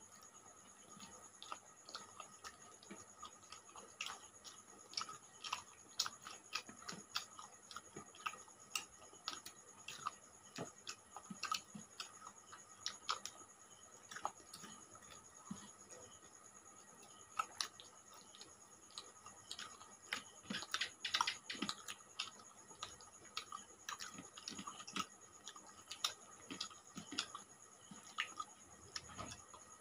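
Soft, irregular clicks and smacks of people eating by hand: chewing and lip smacks, with fingers mixing rice on plates.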